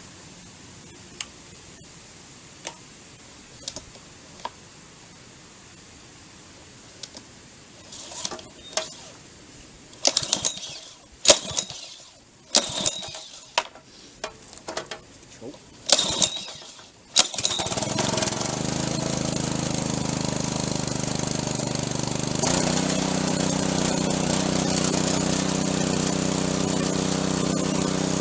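Small gasoline engine on a pressure washer being pull-started: a run of sharp yanks on the recoil starter, then the engine catches and runs steadily, its note shifting slightly about five seconds after it starts.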